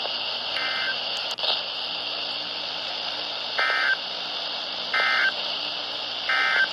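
NOAA Weather Radio broadcast over steady receiver hiss, sending EAS end-of-message data bursts: short buzzy two-tone digital chirps, one just after the start, then three in a row about 1.3 seconds apart near the end. A single sharp click about a second and a half in.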